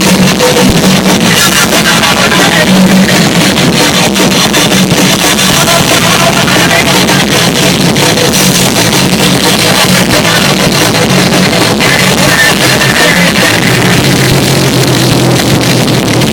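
Loud, dense rock music with guitar, in a punk or heavy-metal vein.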